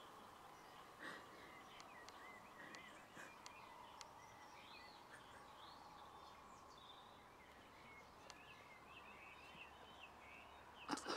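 Faint outdoor ambience with small birds chirping and calling in the background, over a faint steady hum. A few brief, louder knocks come near the end.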